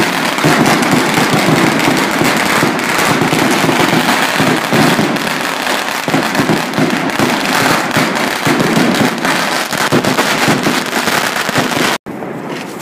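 Firecracker strings and fireworks exploding close by in a dense, unbroken barrage of rapid bangs and crackles. About twelve seconds in it cuts off suddenly, leaving quieter crackling.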